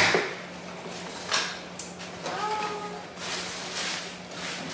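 A cardboard shipping box knocked and handled, then plastic packaging rustling and crinkling as the items are pulled out of the box.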